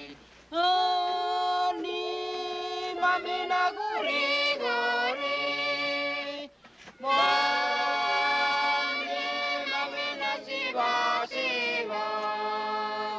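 A group of voices singing unaccompanied, holding long notes with some sliding pitches, in phrases with a short pause about halfway through.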